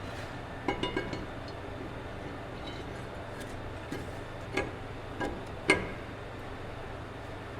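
Metal tools and brake parts clinking and knocking a few times, the sharpest knock about six seconds in, over the steady low hum of a waste oil shop heater.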